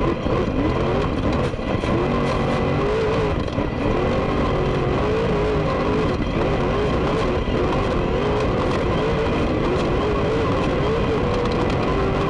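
Off-road race truck driven hard over a rough desert track, heard from inside the cab. The engine rises and falls in pitch over loud road and chassis rattle, with scattered knocks from the bumps.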